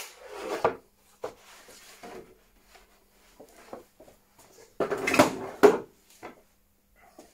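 Wooden pieces of a shop-made infeed support being handled: a knock right at the start with a scrape after it, a few light knocks, then a louder clatter of wood knocking and scraping about five seconds in.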